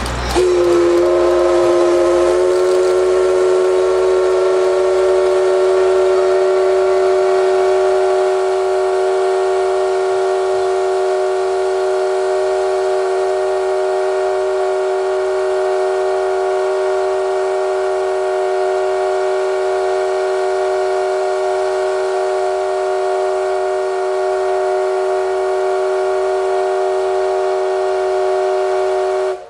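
Steam locomotive whistle blowing one very long, continuous blast of several tones. It rises slightly in pitch over the first two seconds, holds steady, and cuts off abruptly after nearly half a minute.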